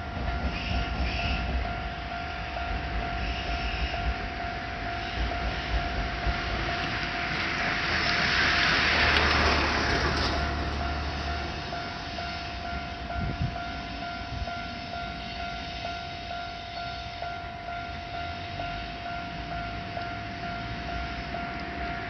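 Japanese level crossing warning bell ringing steadily while a train rumbles through the crossing, loudest about nine seconds in, then fading.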